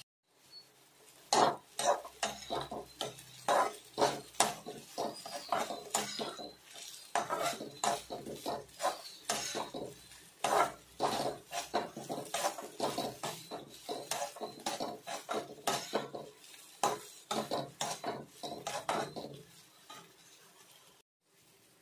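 A metal spatula scrapes and knocks against the pan while stir-frying sliced bitter gourd and onions. The strokes are irregular, several a second, and stop near the end.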